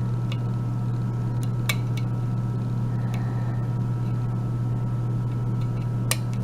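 A few faint clicks of a lock pick and tension wrench working the pins inside a euro cylinder lock, over a steady low hum.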